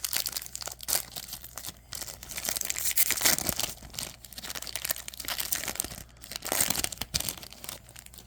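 A baseball card pack's wrapper being torn open and crinkled by hand, with irregular crackling throughout, then the cards being pulled out.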